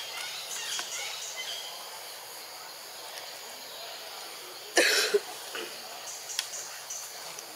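A short, loud cough about five seconds in, two quick rough bursts, over a steady high background hiss.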